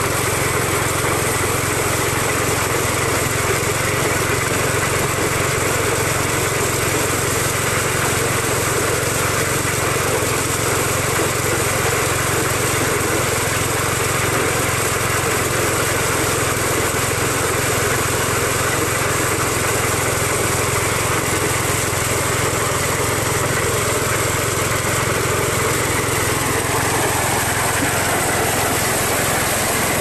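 A small engine running steadily at an even speed.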